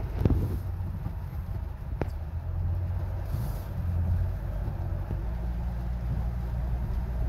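Inside a moving car's cabin: a steady low rumble of engine and tyres on a wet road, with a couple of short sharp ticks.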